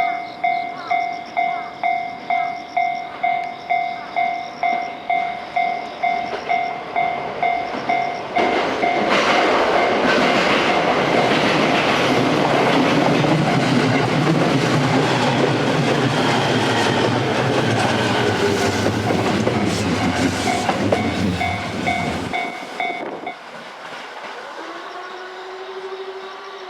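A Japanese level-crossing warning bell rings in a steady pulse about twice a second. About eight seconds in, an E217 series electric commuter train passes loudly for some fourteen seconds and all but drowns the bell. The bell stops about a second after the train has gone.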